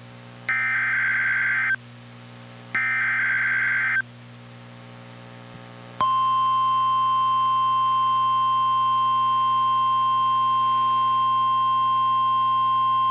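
NOAA Weather Radio SAME header: two about one-second bursts of warbling digital data screech, a second apart. After a two-second pause, the steady 1050 Hz Warning Alarm Tone starts about six seconds in and holds, announcing a Special Marine Warning broadcast.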